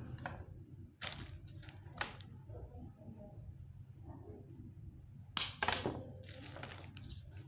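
Red-handled cutters snipping the stems of latex artificial orchids: sharp snaps about a second in, about two seconds in and a cluster around five and a half seconds, followed by a rustle of handling near the end, over a steady low hum.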